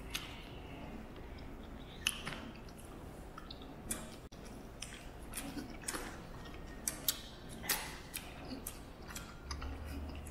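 Close-up eating sounds: irregular wet smacks and clicks of chewing. A low hum comes in near the end.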